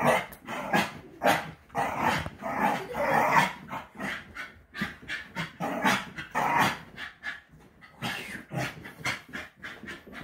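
Patterdale terrier puppy growling and barking in short bursts while pulling against a towel in tug-of-war.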